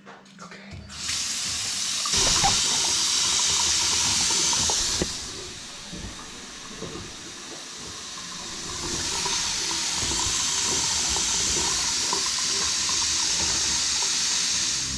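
A sink faucet running water hard into a basin, a steady rushing hiss that starts about a second in, eases off for a few seconds midway, then comes back strong and cuts off suddenly at the end.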